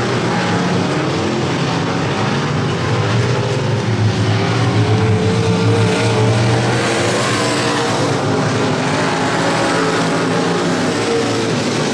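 Several dirt-track race car engines running hard around the oval, their pitches rising and falling as the cars pass, loudest about four to seven seconds in as cars come by close.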